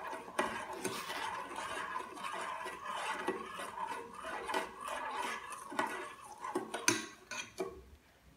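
Metal spoon stirring and scraping around a stainless steel bowl of orange juice, with frequent light clinks against the side, mixing in the sugar and honey. The stirring dies away near the end.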